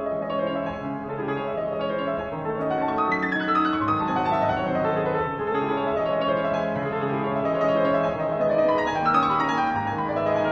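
Fazioli grand piano playing a dense classical solo, the sound swelling up at the start, with fast runs sweeping down the keyboard about three seconds in and again near the end.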